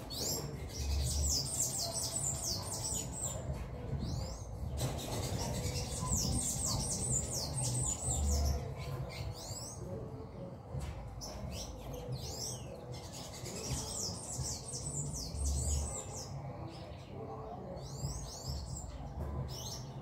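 Small songbirds chirping: four bouts of rapid, high-pitched falling chirps a few seconds apart, over a steady low background rumble.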